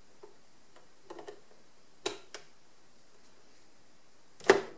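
Scattered small plastic clicks and taps as the pivot-wheel housing is handled and set into the underside of a Roborock robot vacuum: a few light ticks about a second in, two sharp clicks at about two seconds, and one louder clack near the end.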